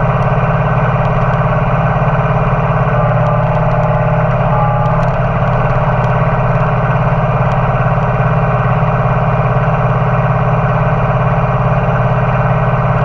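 Compact tractor engine running at a steady throttle as the tractor drives along, a loud unchanging drone.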